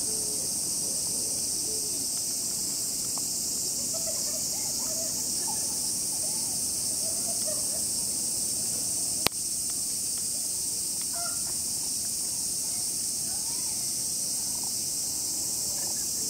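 A dense chorus of cicadas buzzing steadily and shrilly in the summer trees. A single sharp click cuts through it about nine seconds in.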